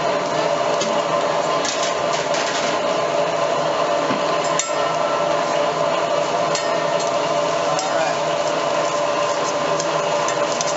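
Metal spatulas clicking and scraping on a teppanyaki griddle as fried rice and egg are worked, with scattered sharp taps, over a steady sizzle and restaurant noise.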